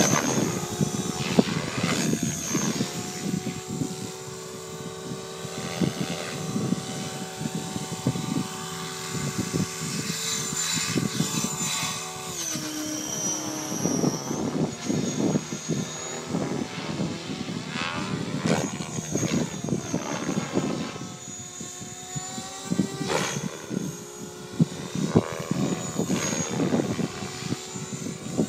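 Align T-Rex 550 electric radio-controlled helicopter flying 3D aerobatics, its rotor whine and blade chop rising and falling as the blades load and unload through the manoeuvres. The pitch falls steeply about halfway through.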